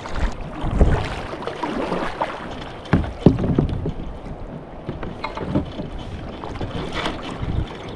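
Irregular hollow knocks and bumps on a plastic kayak hull, with water moving against it, as someone shifts about in the boat.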